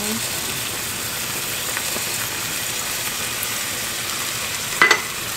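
Tomato sauce with squid sizzling in a frying pan as uncooked rice is poured in from a bowl. A short sharp knock about five seconds in.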